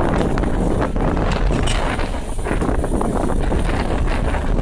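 Wind buffeting the smartphone's microphone in a steady, rumbling rush, over the distant roar of a departing airliner's jet engines as it climbs away.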